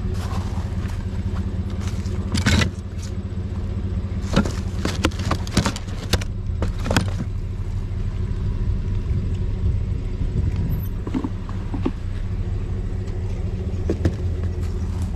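A vehicle engine idling steadily, with sharp knocks and clatters of objects being handled, once about two and a half seconds in and several times between about four and seven seconds in.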